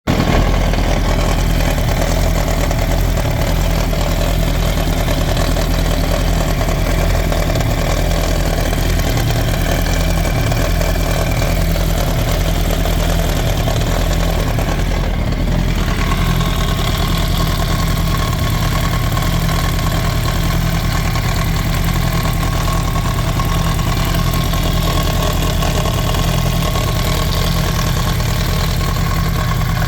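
2007 Yamaha YZF-R1's inline-four engine idling steadily with a grinding, rattling noise whose cause the owner cannot pin down. About halfway through the sound shifts a little and a thin steady whine comes in.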